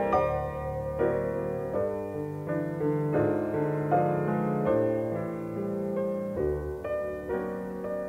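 Background piano music.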